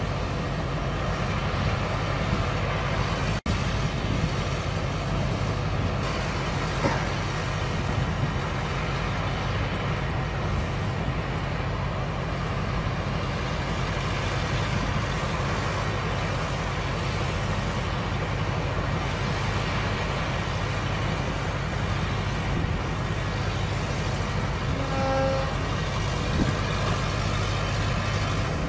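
Diesel engine of a Bastion coastal missile launcher truck running steadily, with a short high tone near the end.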